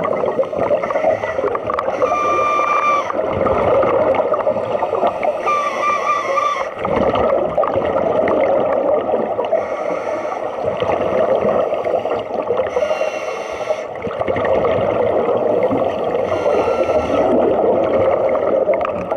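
Scuba regulator breathing heard underwater: a steady bubbling and gurgling of exhaust bubbles, with a hissing breath through the regulator every few seconds.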